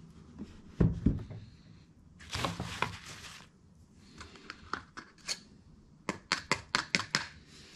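Hands handling a plastic oil bottle and funnel on the transmission case: a deep thump about a second in, about a second of rustling a little after two seconds, then a quick run of light clicks near the end.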